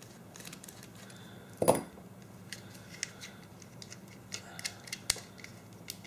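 Scattered small clicks and ticks of a small screwdriver working at a plastic mains plug to open its housing, with a louder clack about one and a half seconds in and a sharp click near the end.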